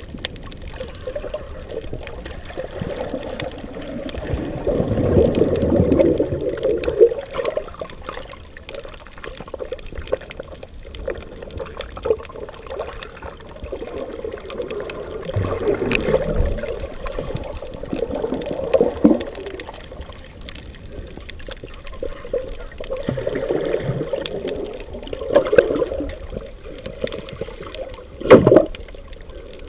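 Water swishing and gurgling, muffled as heard underwater through a camera's waterproof housing, swelling in several surges and loudest about five seconds in. A short sharp knock near the end.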